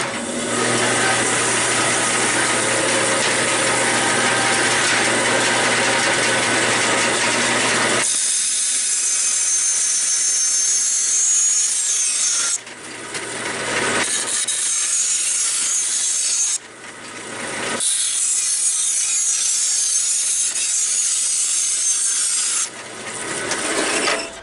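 Power tool cutting a sheet-steel floor-pan patch piece. It runs in long stretches, with a steady low hum for the first third, and pauses briefly twice and again near the end, picking back up after each pause.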